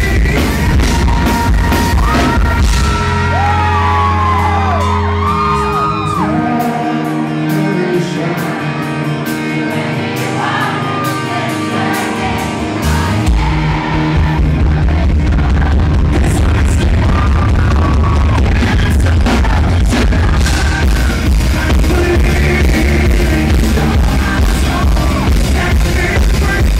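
Live rock band playing with a male lead singer, heard through a camera microphone in the crowd, the heavy bass and drums distorting the recording. For about seven seconds in the middle the bass and drums drop out, leaving the voice and higher instruments, then the full band comes back in.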